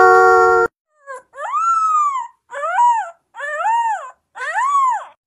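Rottweiler puppy howling: a short yelp, then four high howls that each rise and fall in pitch. The howls come after the last held note of a sung tune, which cuts off suddenly.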